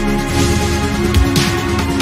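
Electronic background music: sustained synth chords over a deep bass note, with a swelling cymbal-like hiss about one and a half seconds in.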